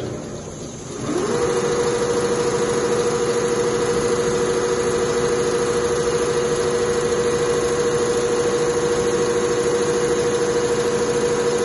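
Two-head CNC leather sewing machine stitching at full speed: its needle drives come up to speed about a second in, then run a steady whine with a fast, even stitching pulse.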